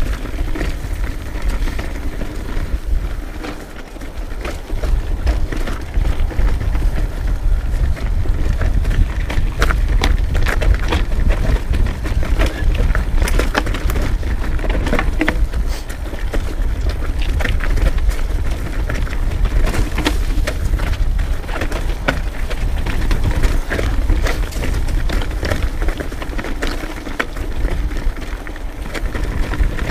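Trek Remedy mountain bike descending a rough trail: a steady low rumble of wind on the microphone, with frequent clicks and rattles from the bike and tyres over rocky ground.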